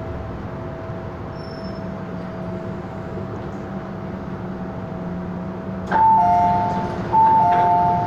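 Steady running noise of an MTR M-Train pulling into a station. About six seconds in comes a click, then two loud two-note 'ding-dong' chimes, high then low, a second apart: the train's door chime as the doors open.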